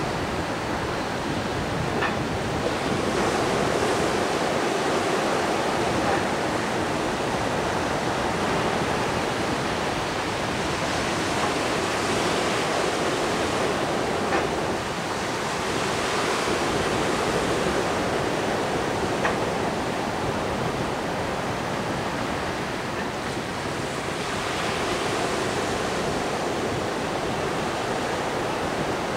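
Surf washing and breaking at the shoreline, a steady rushing hiss, with a few faint knocks.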